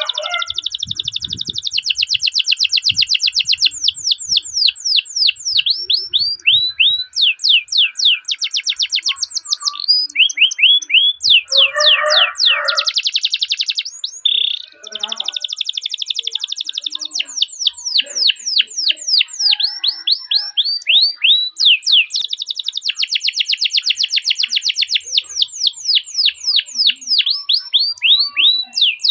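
Domestic canary singing long rolled trills: fast runs of repeated chirps, many of them falling sweeps, with only a brief break about halfway through.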